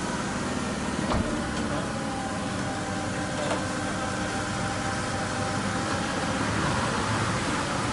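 An engine idling steadily, with a short knock about a second in.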